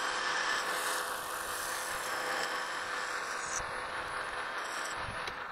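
Precision Matthews PM-1127 metal lathe running and taking a light facing clean-up cut, about ten thousandths deep, across a large plate on its faceplate. A steady machine whir with a faint hum of tones, which cuts off sharply just after five seconds in as the spindle stops.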